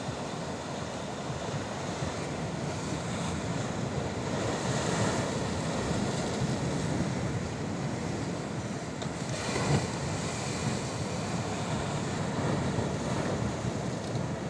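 Ocean surf breaking and washing over a rocky shore, a continuous rushing wash that swells about five seconds in and again near ten seconds. Wind is buffeting the microphone.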